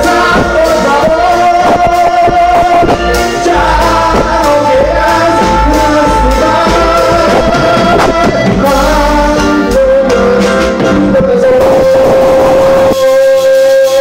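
Live band music, loud, with drums and singing carrying a melody of held notes. About a second before the end the drums and bass drop away, leaving one long held note.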